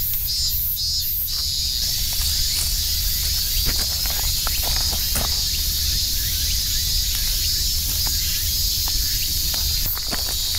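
Steady high-pitched chorus of insects, over a low rumble on the microphone. A few light crunches and ticks of steps in dry leaf litter come and go.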